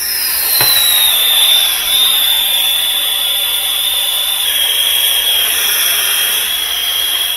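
Small soldering torch with a number three tip burning with a steady hiss and a high whistle that settles a little lower in pitch over the first couple of seconds. It is heating a fluxed capillary-tube coupling for soldering, and the flame is shut off at the end.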